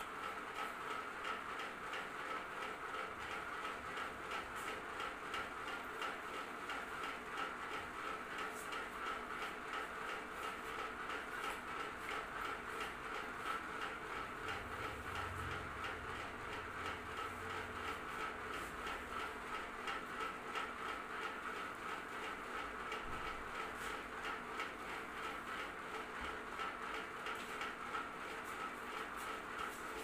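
Ceiling fan running steadily: an even whir with a fast, regular ticking. A brief low rumble about halfway through.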